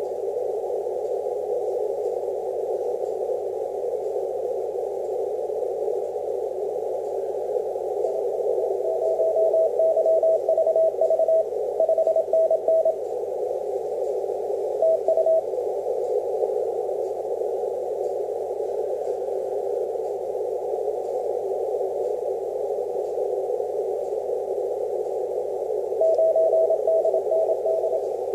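Ham transceiver receiving Morse code (CW) on the 6-metre band. Steady band hiss comes through a narrow 500 Hz CW filter, and a weak DX station's keyed Morse tone rises out of the noise about eight seconds in. The tone fades after a few seconds, returns briefly, and comes back near the end.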